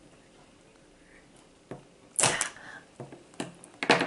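Scissors and a hard plastic toy capsule being worked open: a crackling snap about halfway in, then a few sharp plastic clicks, the loudest near the end.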